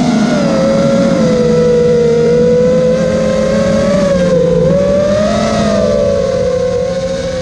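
Electric motors and propellers of a self-built FPV freestyle quadcopter whining in flight, heard from the onboard camera. The pitch drifts with throttle, dipping about halfway through and rising again.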